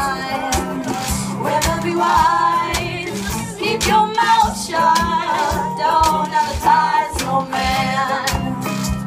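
Live acoustic string band playing a song: strummed acoustic guitars keeping a steady rhythm, with several voices singing together.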